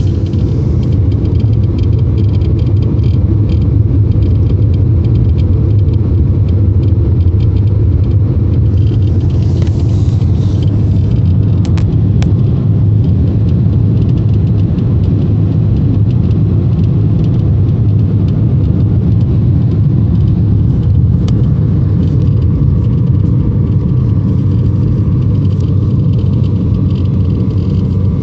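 Cabin rumble of a VW Golf Mk4's 1.6 16V four-cylinder engine and tyres while driving, with a fast, irregular crackle of faint clicks over it, like a Geiger counter. The owner places the crackle under or inside the steering wheel.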